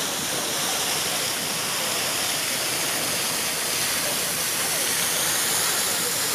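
Fountain jet falling back into its stone basin: a steady rushing splash of water.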